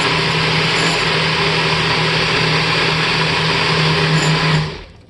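NutriBullet blender motor running steadily with a low hum, blending a batter of banana, nuts and almond milk. It stops abruptly near the end.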